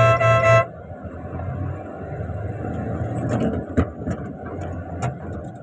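A vehicle horn blast that ends about half a second in, followed by a truck's engine and road noise heard from inside the cab, with a few short knocks and clicks.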